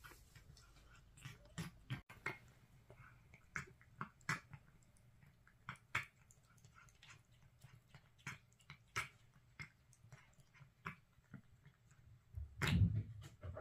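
A cat eating, with irregular soft chewing clicks. Near the end there is one louder, longer animal sound.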